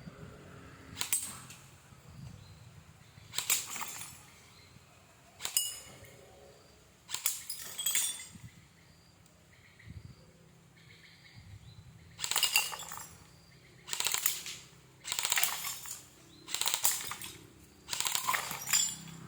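An M4-style BB gun being fired about nine times at an irregular pace, each shot a sharp crack with a quick clink of a hit on hard glassy targets close behind.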